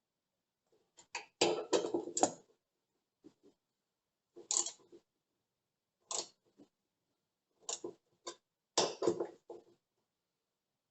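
Hand tool tightening the bolts of a car tailgate latch striker: short bursts of metallic clicking and rattling, about five bursts with pauses between. The striker is being shifted and tightened so that it presses the lock harder and stops the tailgate's squeak.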